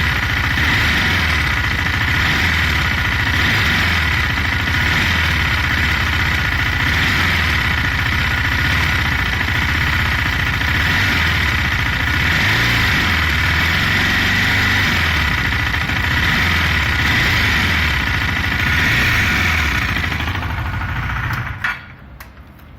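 2018 KTM Duke 390's single-cylinder engine running steadily, with the metallic ticking noise that the owner is trying to diagnose, its pitch shifting a little midway. It cuts off abruptly near the end, leaving a few faint clicks.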